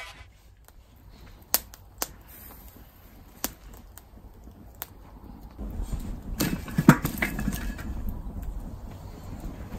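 Wood fire of kindling and split firewood crackling, with a few sharp isolated pops. From about halfway through, the fire gives a louder, steady rushing hiss, with one loud pop.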